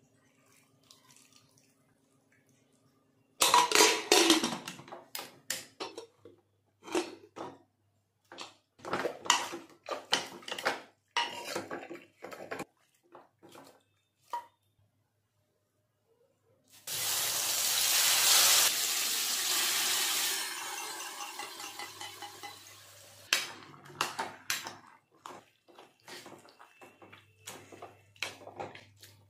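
A steel spoon clinking and scraping against an aluminium pressure cooker and a steel pan as cooked carrots are scooped, mashed and stirred, in short sharp knocks. About halfway through, a loud hiss starts and fades away over a few seconds.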